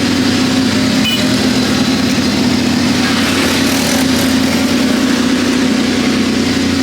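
ATV engine running steadily, holding an even pitch.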